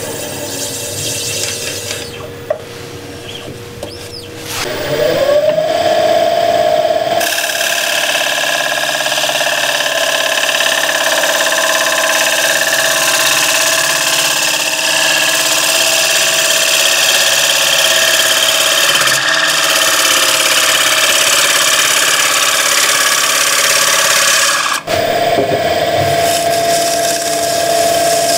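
Wood lathe running, its motor whine rising in pitch about four seconds in. Then a bowl gouge takes a long, steady smoothing cut on a spinning cherry bowl, a loud rough hiss. The cut stops abruptly near the end and the lathe runs on alone.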